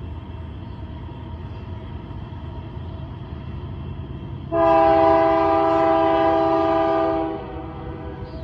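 Union Pacific freight train's lead locomotive, a GE C44ACM rebuild, sounding one long horn blast about four and a half seconds in that lasts about three seconds, over the steady low rumble of the diesel locomotives.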